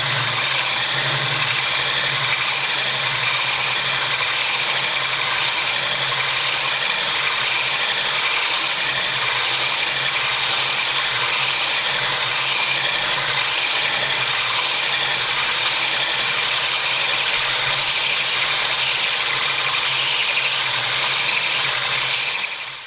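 Electric drill driving a hole saw, running steadily without a break, with a thin high motor whine, then cutting off suddenly.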